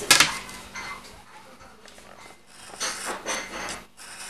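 Craft knife drawn along a metal ruler, scoring through thick artist's cardboard: a sharp, loud stroke right at the start, then a few rasping strokes about three seconds in.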